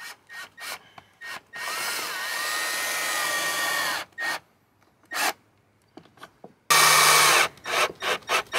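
Cordless Milwaukee drill-driver driving 1.5-inch #8 Phillips screws through wooden framing into a plywood box. The motor runs steadily with a whine for about two and a half seconds, then gives a shorter, louder burst later on. Clicks and knocks from handling the tool come in between.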